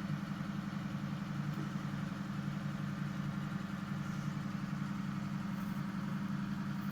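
Steady low mechanical hum of a running motor, even and unbroken.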